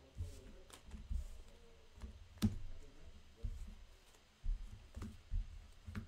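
Yu-Gi-Oh cards being gathered and handled on a tabletop: irregular soft knocks against the table and a few sharp clicks, the loudest about two and a half seconds in.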